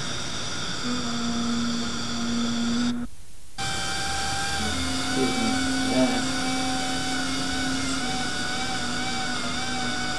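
Straight dental handpiece with a bur running with a steady whine, its pitch wavering slightly as it grinds a tooth. The sound drops out briefly about three seconds in.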